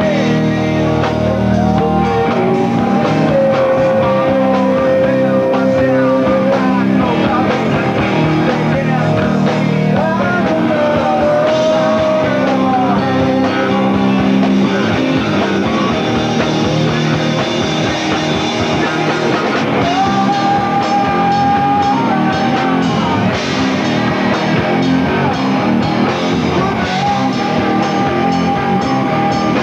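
Live rock band playing: electric guitars and drum kit, with a singer holding long notes over them.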